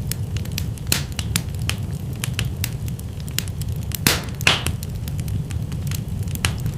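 Wood fire burning in a fireplace, crackling steadily over a low rumble of the flames, with two louder pops about four seconds in.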